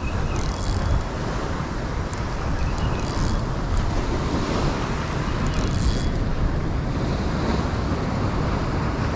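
Wind buffeting the microphone over surf washing up a sandy beach: a steady, rumbling rush of noise.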